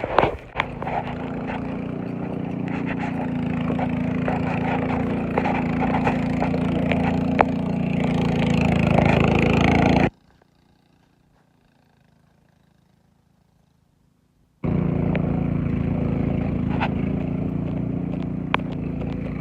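An engine running steadily with a low hum, growing slowly louder, with a few sharp ticks and scrapes over it. About ten seconds in it cuts abruptly to near silence for four or five seconds, then comes back just as steady.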